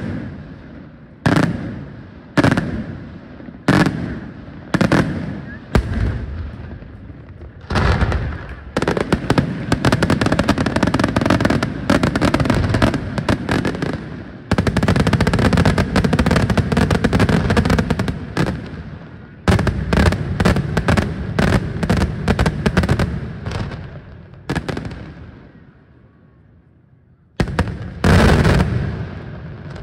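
Daytime fireworks display: shells bursting with loud single bangs about once a second, then a dense, rapid crackle of many bursts together for about ten seconds. Single bangs follow, then a short lull, and a loud new volley near the end.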